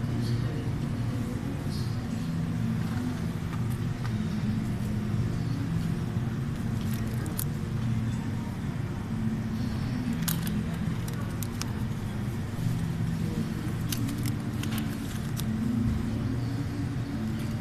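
Supermarket background noise: a steady low hum with faint voices, and a few short crinkles of plastic cheese packaging being handled, mostly in the second half.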